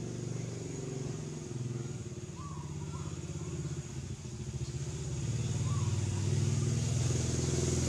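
A motor engine running steadily, growing louder from about five seconds in.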